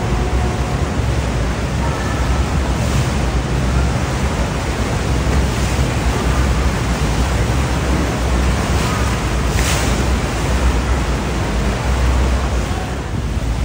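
Steady, loud rushing noise with a heavy low rumble.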